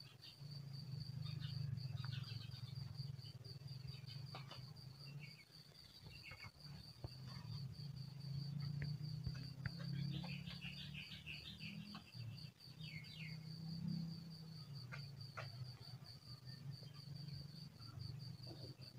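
Insects trilling in a steady, high, finely pulsing drone, with a few short bird chirps and a low hum underneath.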